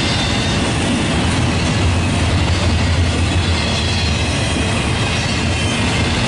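Freight train rolling past: the steady rumble and clatter of rail car wheels on the track, with no horn sounding.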